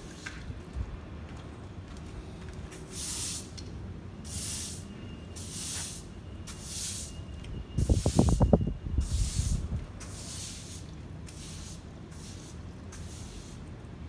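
Plastic-bristled broom sweeping sand and grit across a concrete floor: repeated short swishing strokes, about one a second. About halfway through there is a brief, loud, low rumbling rattle.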